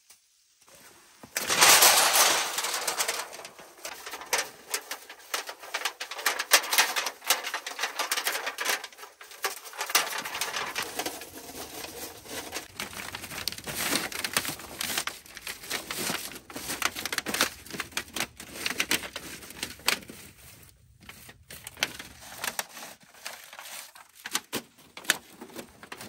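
Close handling noise in snow: crunching, scraping and rustling as a man kneels and moves a long wooden pole over snowy ground. It is a dense run of crackles that starts about a second and a half in and eases a little near the end.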